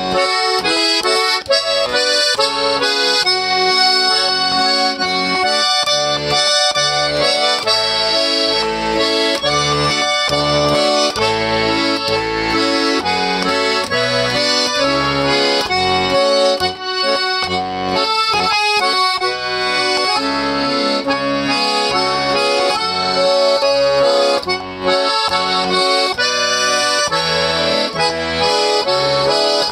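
Garmon (Russian button accordion) playing a folk tune: a melody with chords over a rhythmic bass accompaniment.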